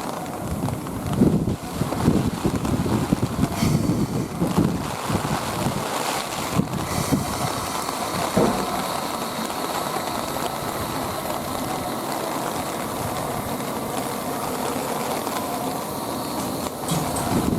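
Heavy wind buffeting on the microphone over the steady running noise of a moving vehicle, with gusty surges in the first half.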